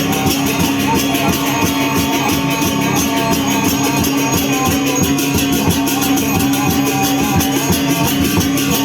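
Continuous instrumental music with many quick, even strikes over a held tone.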